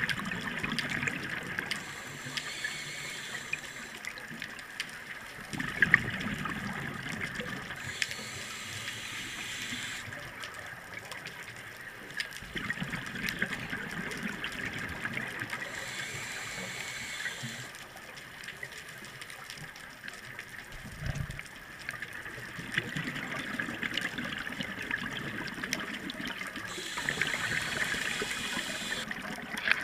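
Scuba diver breathing through a regulator underwater: a hiss on each inhale alternates with a rumble of exhaled bubbles every several seconds.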